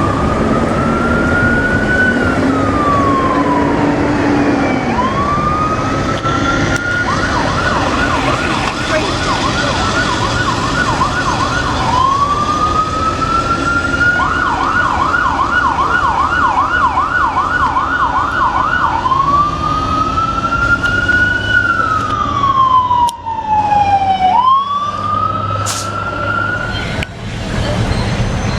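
Electronic emergency-vehicle siren switching between a slow rising-and-falling wail and a fast yelp, with two stretches of yelp in the middle.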